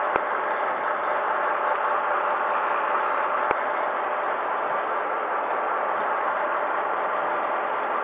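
Steady hum of a fishing boat's engine idling, with two faint clicks.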